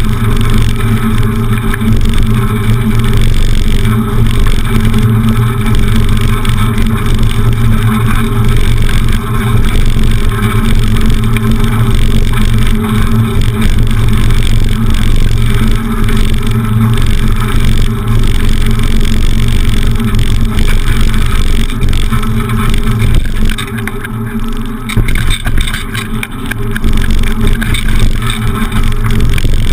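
Bicycle ride noise picked up by a handlebar-mounted camera: steady wind rumble and rattling of the beach cruiser over cobblestones, with a low steady hum. It eases off briefly about three-quarters through.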